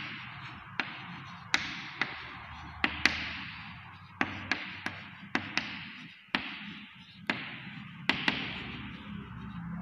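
Chalk writing on a blackboard: about fifteen sharp taps at irregular intervals as the chalk strikes the board, each trailing off in a short scratchy hiss as the stroke is drawn.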